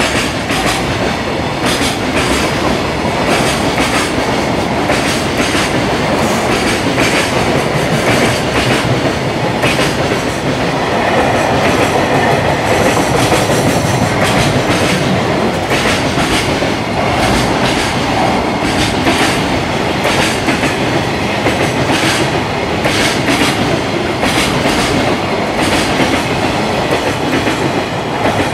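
Long container freight train passing close by, its flatcar wheels clattering over the rail joints in repeated clicks over a continuous rolling rumble.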